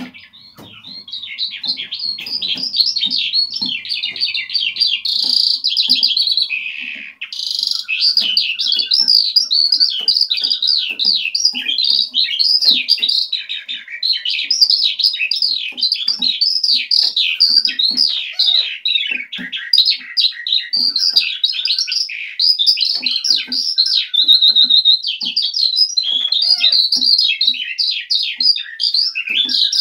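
Eurasian skylark singing a long, unbroken song of rapid, high warbles and trills, with one brief break about seven seconds in.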